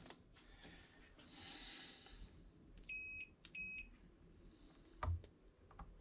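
Two short electronic beeps from a digital multimeter, a fraction of a second apart, as test probes check a heated motorcycle grip's element for continuity. A light knock follows about two seconds later.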